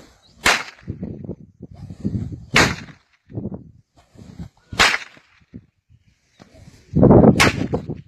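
Hand-made bird-scaring rope whip, tipped with plastic threads, cracking four times about two seconds apart as it is swung and snapped.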